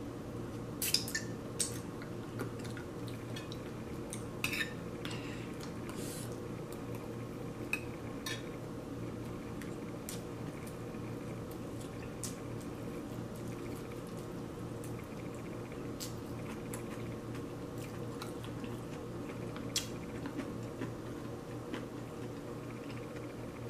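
Scattered light clicks and taps as food is picked up and handled on china plates, a dozen or so spread irregularly, over a steady low hum.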